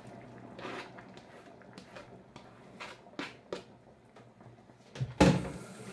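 Grated carrot being knocked and scraped off a cutting board into a pot: a few light taps and scrapes, then one louder knock with a short ring about five seconds in.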